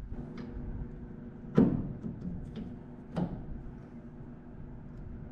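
A few metallic clicks and knocks as a steering universal joint is handled and fitted onto a stainless steel double-D steering shaft, the loudest about one and a half seconds in, over a steady low hum.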